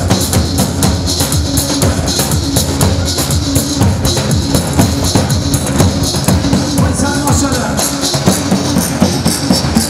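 Live Kurdish wedding dance music: electronic keyboard over a steady, driving drum beat.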